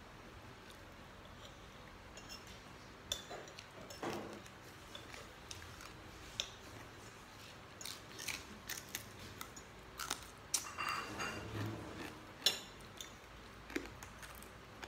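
A person eating with bare fingers: chewing and biting, with small crunches and sharp clicks at irregular moments, the sharpest two in the second half.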